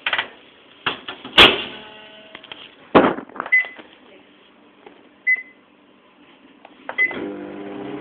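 Microwave oven being set going: a few clunks and clacks, three short high beeps, then about seven seconds in the oven starts running with a steady hum.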